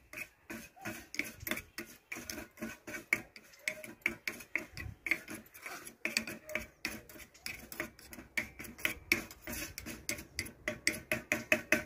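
Metal spoon stirring a thick turmeric and curd paste in a small steel bowl, clinking against the sides several times a second.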